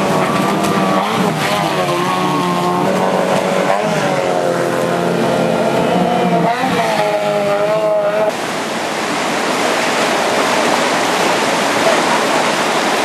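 Outboard motor of a racing power dinghy in rapids, its pitch rising and falling as the throttle is worked. About eight seconds in the engine gives way suddenly to a steady rush of white water.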